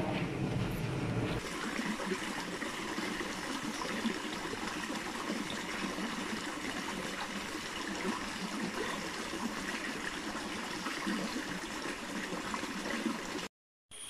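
Steady rush of flowing stream water, an even wash of noise that cuts off suddenly near the end.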